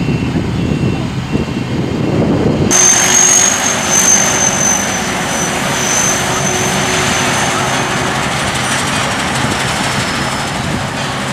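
Sakpattana corn combine harvester running: steady, loud machine noise. About three seconds in the sound changes abruptly, and a steady high whine then runs over the machinery.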